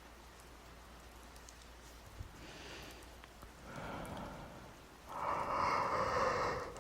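Soft breaths close to the microphone over faint steady background rain. The loudest is a longer exhale like a sigh near the end.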